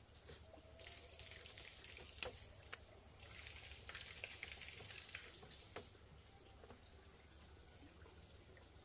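Faint water splashing and pouring in two stretches, with a few light knocks.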